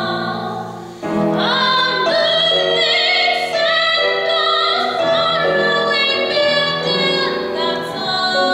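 Solo female musical-theatre voice singing with vibrato over grand piano accompaniment. A held note fades about a second in, then she comes back in with a new phrase.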